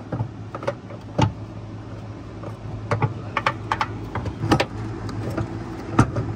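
Scattered sharp metallic clicks and knocks of hand tools and shifter hardware under a car, over a steady low hum. One knock comes about a second in, a quick cluster follows about three to four and a half seconds in, and another comes near the end.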